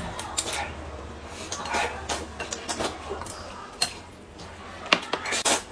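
Close-up eating sounds: noodles slurped in a few short bursts, with chewing and scattered sharp clicks of chopsticks on a bowl.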